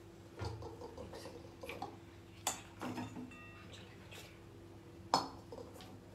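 Kitchen clatter: a few sharp knocks and clinks of utensils and dishware being handled, the loudest one near the end, over a steady low hum.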